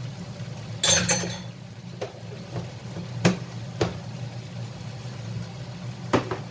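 Kitchen utensil clatter: a quick run of metallic clinks about a second in, like a spoon tapped on a frying pan, then single sharp taps every second or so, over a steady low hum.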